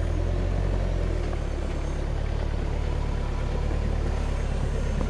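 Off-road trial buggy's engine running steadily at low revs while the buggy crawls around a marked tree.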